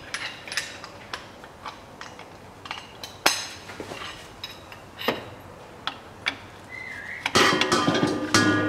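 Scattered metallic clinks and knocks of a 24 mm socket wrench being handled and fitted onto a manual gearbox's fill plug, busier and louder about seven seconds in.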